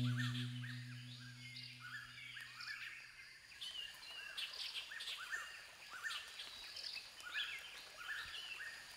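Faint forest birds calling, many short chirps repeated over and over. A low held music chord fades out over the first few seconds.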